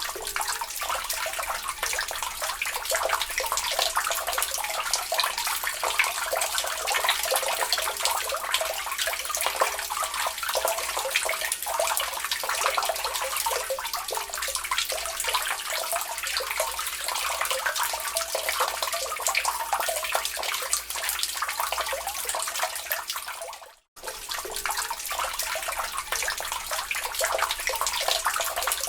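Rainwater running and splashing through a house's gutters, a steady rush with many small drips and spatters. It cuts out for a moment about 24 seconds in.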